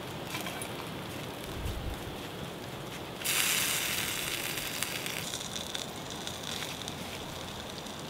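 Campfire crackling and hissing with small pops under the spit-roasting leg of lamb. About three seconds in a louder hiss starts suddenly, lasts about two seconds, then eases into a fainter hiss.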